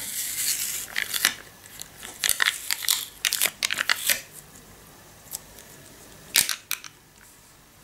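A paper sticker label being peeled back off the foil lid of a plastic dessert cup: rustling, then a run of small crackles over the first four seconds, and a single sharp click about six and a half seconds in.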